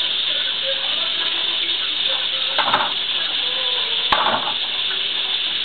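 A fork clattering twice against an aluminium pot of vegetable scraps as it is stirred, about a second and a half apart, over a steady hiss.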